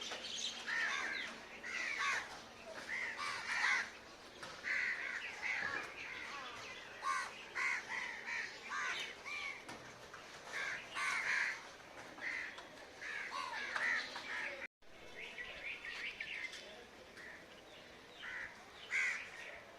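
A flock of crows cawing over and over, calls from several birds overlapping, with smaller birds chirping in between. The audio drops out for an instant about 15 seconds in.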